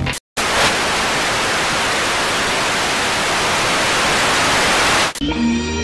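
Analog TV static: a loud, even white-noise hiss lasting about five seconds after a split-second dropout, cutting off abruptly. Music with rising tones comes in near the end.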